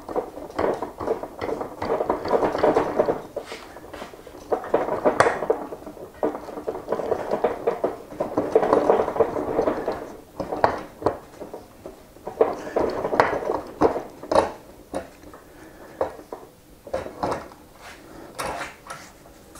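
Ratchet wrench clicking in bursts of one to two seconds, with metal clinks, as the axle nut is worked off an electric unicycle's hub-motor axle; near the end there are only a few separate clicks.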